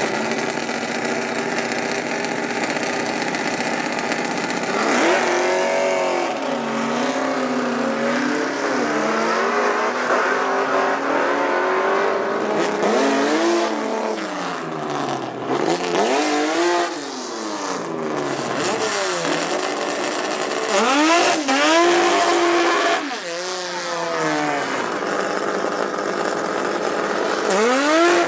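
Six- and eight-cylinder drag-racing car engines revving again and again over a steady idle. Each rev sweeps up in pitch and falls back.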